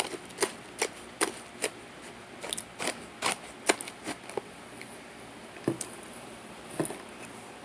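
Starch being chewed: a run of sharp, crisp crunches, a few a second at first and sparser after about four seconds.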